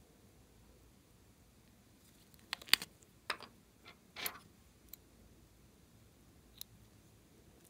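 Hands handling small plastic lip balm containers: a cluster of sharp plastic clicks and short taps through the middle, the loudest a single snap, then one small tick near the end.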